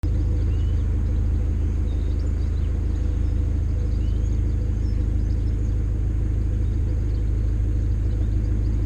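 Narrowboat diesel engine running at a steady, even speed with a deep, unchanging rumble.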